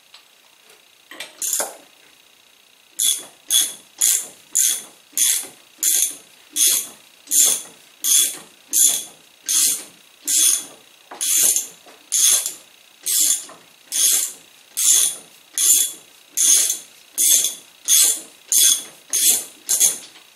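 Ratchet wrench clicking in short, even strokes as nuts are run off the threaded stay rods of a cart: two brief bursts about a second in, then a steady back-and-forth of about one and a half strokes a second from about three seconds in.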